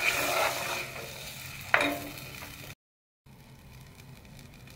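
Blended tomato and chile salsa sizzling as it fries in hot oil in a clay cazuela, stirred with a plastic spoon, with one sharp knock about halfway. The sound cuts out for half a second and comes back quieter.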